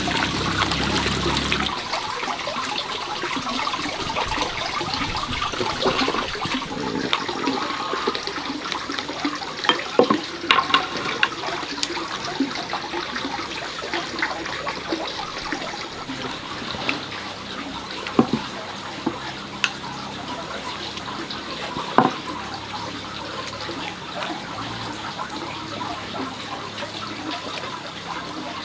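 Water running and splashing steadily, with scattered knocks and clatters of things being handled in the water, loudest about ten seconds in and again around eighteen and twenty-two seconds.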